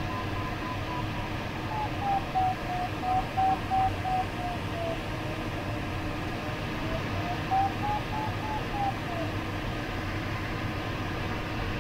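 Glider's audio variometer giving a single electronic tone that slides slowly down and up in pitch as the climb and sink rate changes, over the steady rush of airflow past the cockpit canopy.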